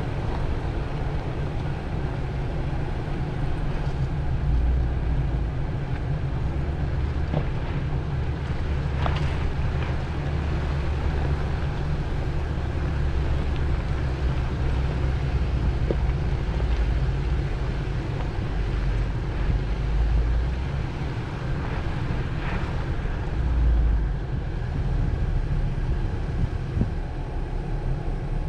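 A vehicle's engine rumbling steadily as it drives a rough trail, with a few knocks and rattles over the rumble.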